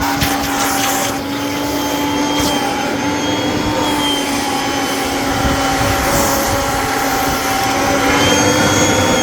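Vacuum cleaner motor running steadily with a whine over a rushing hiss of suction, dry-vacuuming upholstery. It rises slightly in pitch and loudness near the end.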